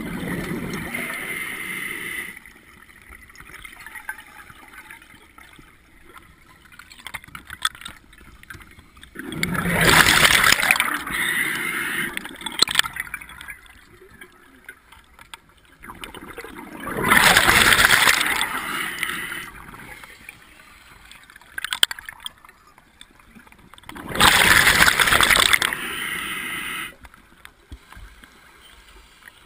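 Scuba diver breathing through a regulator underwater: a loud rush of exhaled bubbles about every seven seconds, each lasting two to three seconds, with quieter gurgling between breaths.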